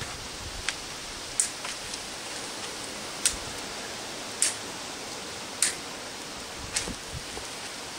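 Excess tails of plastic cable ties being snipped off with cutters, six sharp snips about a second apart, over a steady hiss.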